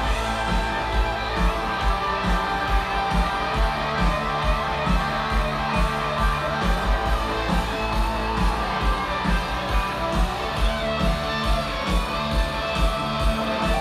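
Live rock band playing loud through a concert PA: amplified electric guitar over a steady drum beat.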